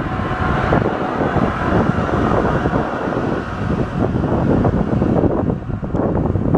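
A train passing close by: a loud, even rush of rumbling wheel and air noise with no horn, with wind buffeting the microphone.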